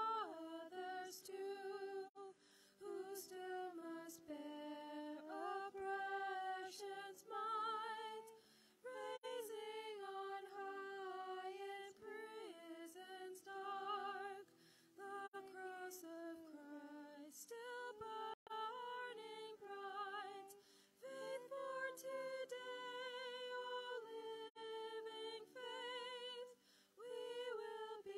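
A single voice singing a slow hymn melody unaccompanied, with vibrato, in phrases separated by short breaths.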